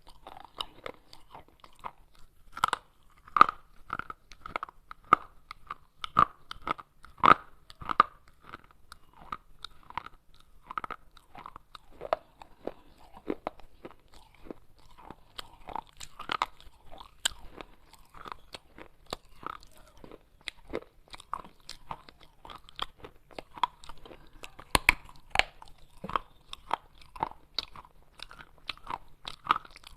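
Pieces of baked clay pot being bitten and chewed: a run of sharp, dry crunches, several a second at an uneven pace, some with a brief brittle ring.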